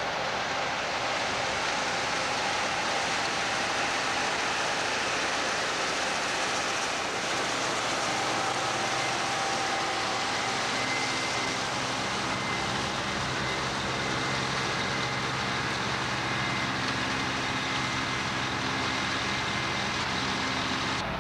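John Deere combine harvesting soybeans at close range: a steady diesel engine drone under the rushing noise of the header and threshing machinery. The engine's hum comes through more clearly in the second half.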